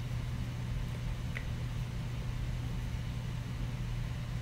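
Steady low hum with a faint even hiss, the background noise of a small room, with a brief faint tone about a second and a half in.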